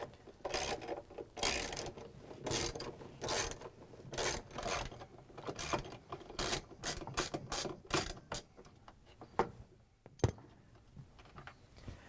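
Hand ratchet with an extension and 3/8-inch socket clicking in short runs as it backs screws out of a washing machine's drain pump cover; the clicking thins out near the end.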